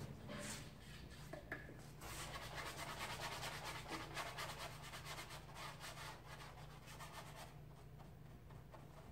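Paintbrush scrubbing quickly back and forth on a canvas: a dense run of short scratchy strokes that starts about two seconds in and eases off near the end, after a few light taps.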